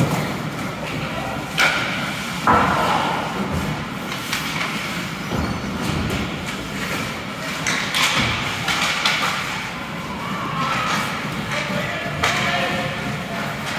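Ice hockey play in a rink: several sharp thuds and knocks, the loudest about two seconds in, over a steady background of spectators' voices and arena noise.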